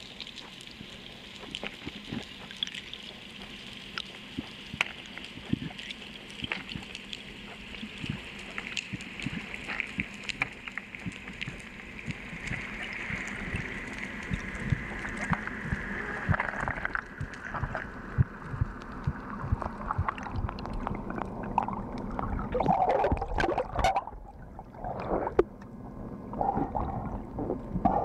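Underwater sound through a camera housing: a constant crackle of small clicks over a hiss that slowly drops in pitch. In the last few seconds, near the surface, come louder bubbling and gurgling water.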